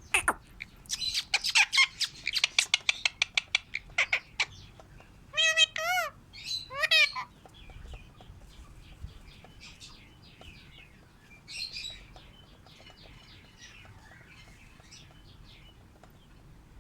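Pet parrots chirping in rapid runs, then two loud wavering squawks about five to seven seconds in, followed by softer, scattered chirping.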